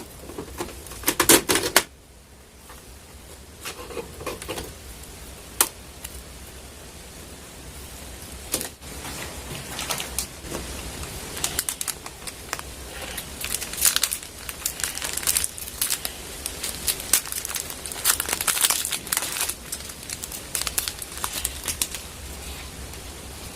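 Packaging being handled and crinkled, with irregular clicks and rustles throughout and a loud cluster of them about a second in.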